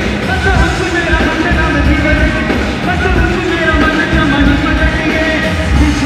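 Loud dance song, a singer over a heavy, pulsing bass beat, playing for a group dance.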